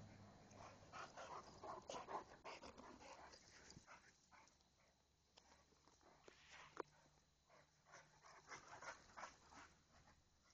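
Great Dane and pit bull play-fighting: a string of faint, short sounds from the dogs, busiest in the first few seconds and again near the end, with a quieter stretch in the middle.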